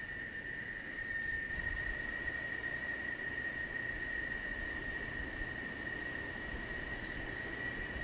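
Forest ambience: a steady, high-pitched insect drone over a fainter high hiss, with a few quick falling chirps near the end.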